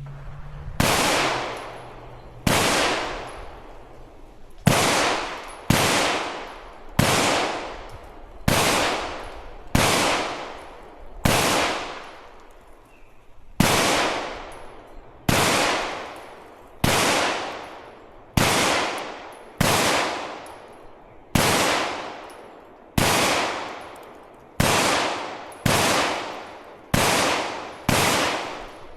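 Slow, steady firearm shots at a range, about nineteen in a row, one every second and a half or so. Each crack trails off in a short echo.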